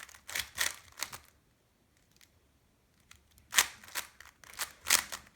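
GAN 356 X plastic speed cube being turned in quick runs of clicking twists, freshly lubricated and being broken in. The turning stops for about two seconds in the middle, then starts again.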